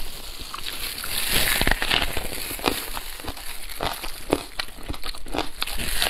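Close-up eating sounds of a person chewing braised pork knuckle: irregular wet smacks, clicks and slurps from the mouth, with crinkling of plastic gloves as the meat is handled.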